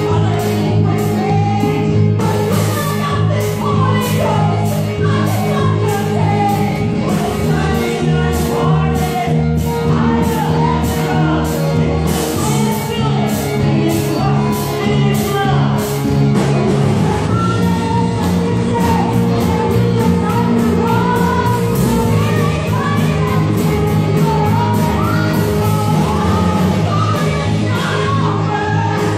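Church praise team singing a praise song with live band accompaniment, over a steady beat.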